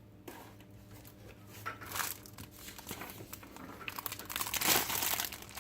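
Crinkling and rustling of packaging being handled, in irregular crackles that get louder about four seconds in.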